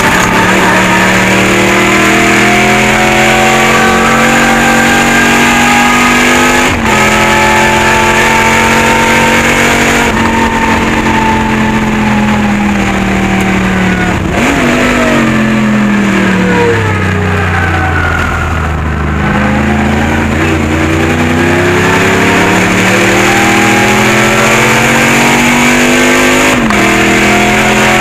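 Pontiac Firebird race car's engine, heard from inside the cockpit at racing pace. It climbs in pitch under full throttle, with a sudden drop at an upshift about seven seconds in, falls away to its lowest point about two-thirds through as the car slows, then pulls up in pitch again with another upshift near the end.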